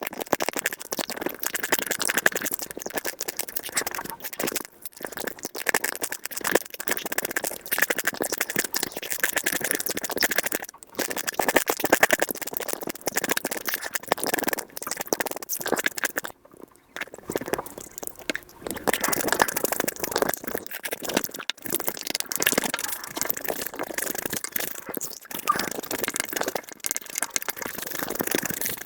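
Close-miked eating sounds sped up five times: chewing, sucking and crunching of soy-sauce marinated crab with rice and egg, turned into a dense chatter of rapid clicks and crackles, with a couple of brief breaks.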